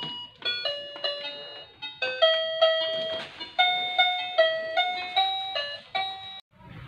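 A simple melody of chiming electronic notes, about two to three a second, each note struck and fading, that cuts off abruptly near the end.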